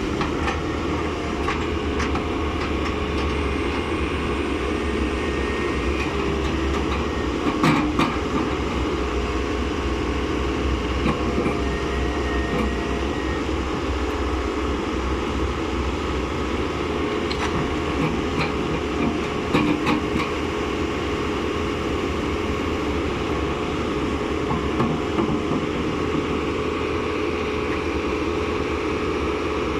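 Caterpillar 426C backhoe loader's diesel engine running steadily, with scattered sharp clicks and knocks, the loudest about eight seconds in and again near twenty seconds.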